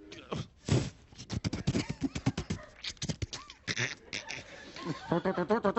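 A man making sound effects with his mouth: a rapid run of clicks, pops and short blips, then, about five seconds in, a pitched, wavering vocal noise.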